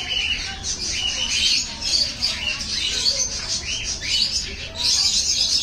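A mixed flock of budgerigars and cockatiels chattering together: a constant mass of overlapping chirps with short squawks mixed in.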